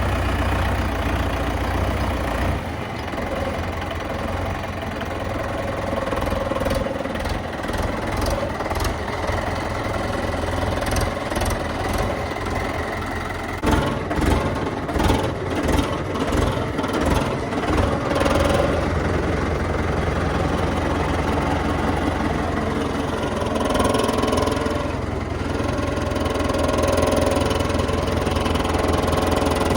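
JCB 3DX backhoe loader's diesel engine running steadily while it works, with a spell of irregular knocks and clatter about halfway through.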